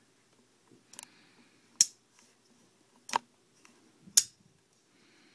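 Tim Galyean Lahar Pro Series flipper knife, with a ball-bearing (IKBS) pivot, being worked open and shut by hand: four sharp metallic clicks as the blade snaps out and locks, then closes.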